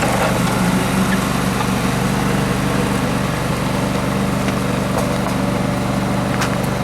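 Small John Deere tractor's engine running at a steady speed, with a constant low hum and a couple of light clicks near the end.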